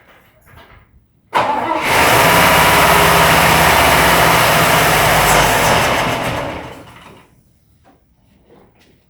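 A big engine starting with the key: it catches abruptly about a second and a half in, runs loud and steady for about five seconds, then dies away. It stalls because it has only the gasoline in its reservoir to run on.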